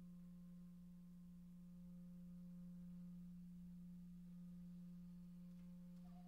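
Faint, steady low hum of a motorcycle engine at a constant cruising speed, picked up by a phone inside the rider's helmet.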